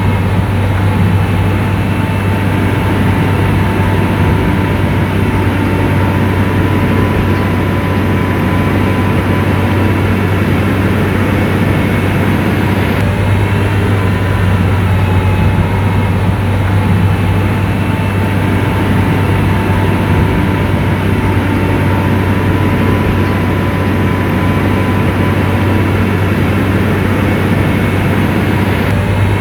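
SDLG motor grader's diesel engine running steadily, a deep even drone with a faint whine above it.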